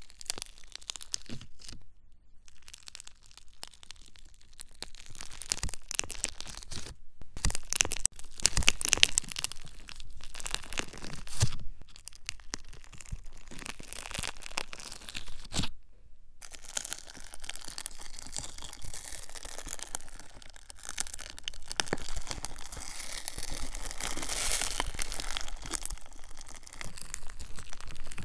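Close-miked ASMR trigger sounds: dense, irregular crackling and scratching right at the microphone, with a few brief pauses.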